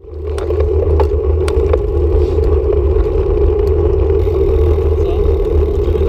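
Road bicycle rolling along a tarmac road, heard as a steady deep wind rumble on a handlebar-mounted action camera's microphone with tyre noise. A few light clicks and rattles come in the first couple of seconds, and the sound fades in from silence at the very start.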